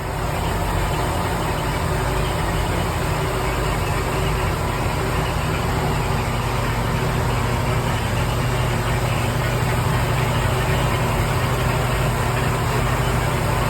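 A boat's inboard marine engine idling steadily, with an even low hum.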